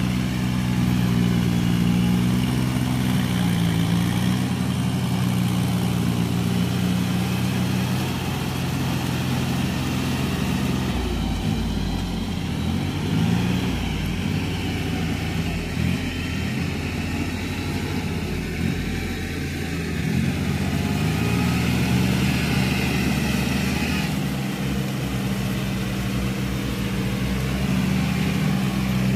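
Farm tractor's diesel engine running under load while rotary tilling a wet paddy field, its note wavering up and down.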